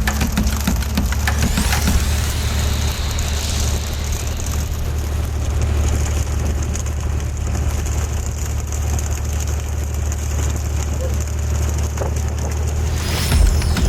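A fishing boat's engine runs steadily under a continuous hiss of splashing water.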